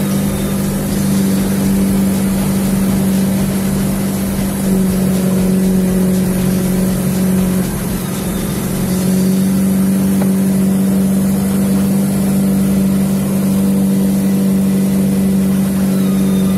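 Vehicle engine running steadily under way, a loud even hum whose pitch dips slightly for a few seconds in the middle.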